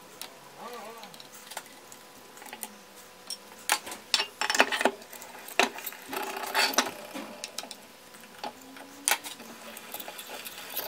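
Clinks and clanks of cast-iron bench vise parts being handled and fitted together as the greased spindle and movable jaw are slid back into the vise body. The clanks come in a cluster about four to seven seconds in, with one more sharp knock near nine seconds.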